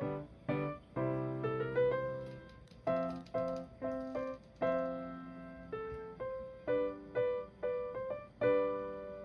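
Background music: a gentle piano melody of separate notes, each struck and left to fade.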